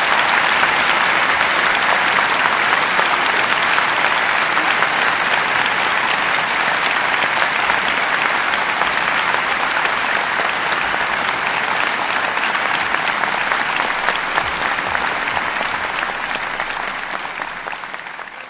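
Large audience applauding, dense steady clapping that thins and fades away near the end.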